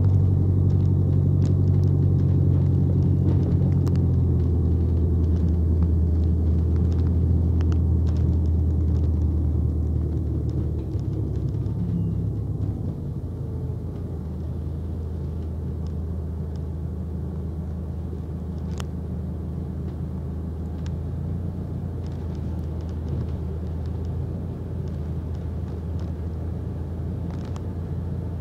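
A single-deck bus's engine heard from inside the passenger saloon while the bus is under way: a low droning hum, loudest for about the first ten seconds, then dropping and settling lower for the rest. A few faint clicks come from the bus interior.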